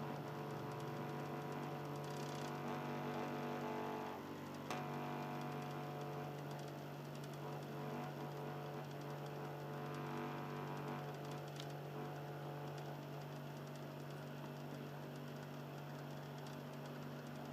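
Philips Lite-On DVD drive in an Xbox 360 Slim, its motor running with a low, soft grinding noise: a steady hum with several layered tones, broken by a single click nearly five seconds in.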